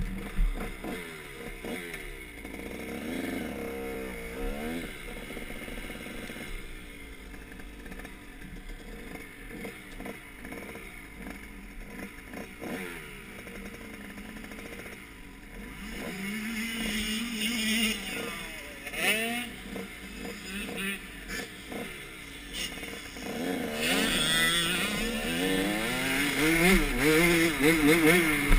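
KTM 85 two-stroke motocross bike engine, heard from the rider's helmet: light blips of throttle through the first half, a steady pull about halfway, then louder, wavering revs up and down through the gears over the last few seconds.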